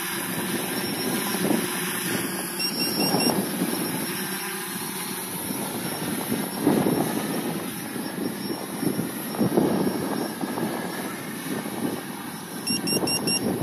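Quadcopter's brushless motors and propellers droning as it hovers and flies some way off, under wind buffeting the microphone in gusts that swell and fade.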